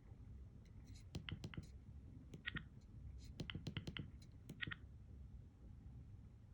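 Motorola RAZR V8 keypad buttons clicking in quick runs as the phone is worked, with a few short electronic beeps in between.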